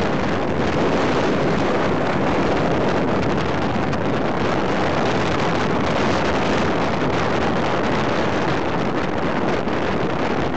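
Steady wind rush buffeting the microphone on a moving Barako motorcycle, with the bike's running and road noise blended in, no single engine note standing out.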